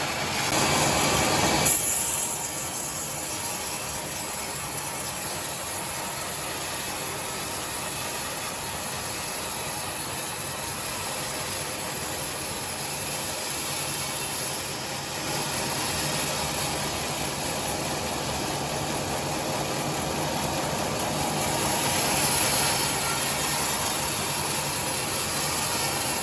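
Sawmill saw running steadily while ripping timber into boards, with a low hum under the cutting noise that swells louder about a second in and again near the end.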